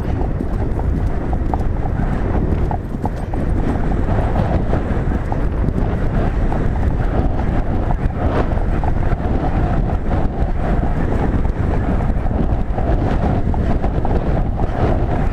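Horse galloping over turf: continuous fast hoofbeats, with wind buffeting the microphone.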